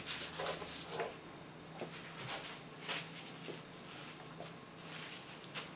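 Quiet room tone with a faint steady low hum and a few faint, scattered clicks.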